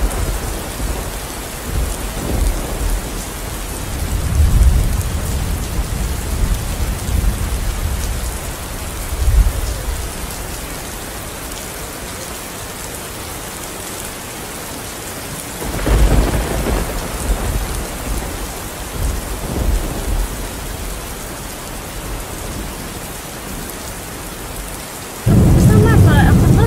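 Heavy rain with repeated rolls of thunder, the strongest swells about four, nine and sixteen seconds in. Near the end the sound cuts abruptly to a louder, steady low rumble.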